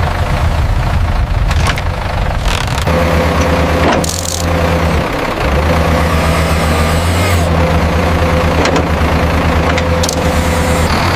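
Heavy construction machinery's diesel engine running steadily. Its note changes about three seconds in, and a few sharp clanks come over it.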